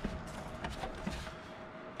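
Light clicks, knocks and rustling from a gloved hand handling a snowmobile's plastic fuel tank while taking it off, with a faint steady hum behind.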